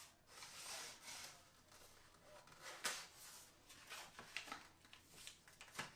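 Faint rustling and a few light clicks from handling a peel-and-stick vinyl tile sheet.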